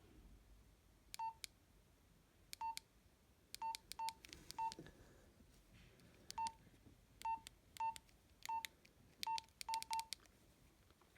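Nokia 112 keypad tones: a click and a short beep at each key press, about a dozen presses at an uneven pace, with three in quick succession near the end.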